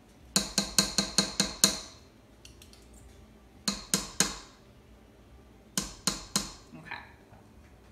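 A small scraper tapped against the rim of a metal stand-mixer bowl to knock sour cream off it: a quick run of about seven sharp taps, then two shorter sets of three.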